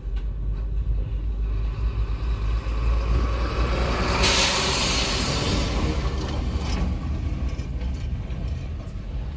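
Heavy motor vehicle running with a steady deep rumble; about four seconds in a sudden loud hiss breaks out and fades away over the next two or three seconds.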